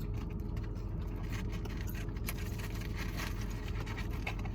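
Steady low hum of a car idling, heard from inside the cabin, with scattered small clicks and rustles.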